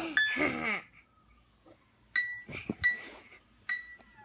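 A child's short vocal sound, then about two seconds in, one high harp string plucked three times at the same pitch, each note ringing and fading, as the string is being retuned.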